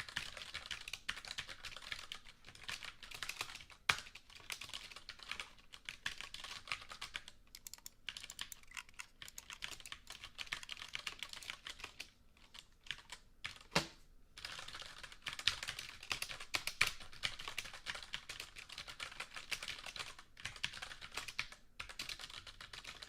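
Typing on a computer keyboard: fast runs of key clicks broken by a few short pauses, with one stronger single key strike about fourteen seconds in.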